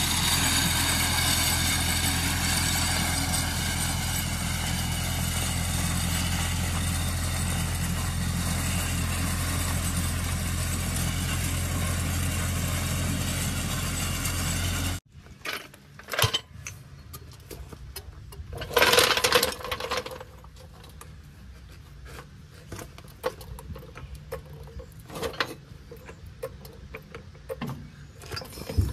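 Compact tractor engine running steadily at an even speed. It cuts off sharply about halfway, leaving a much quieter stretch of scattered light clicks with one louder noise lasting about a second.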